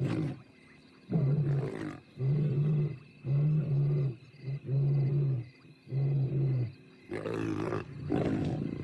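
Lion roaring: a series of six short, low roars about one a second. About seven seconds in, harsher snarling follows as the lions scuffle.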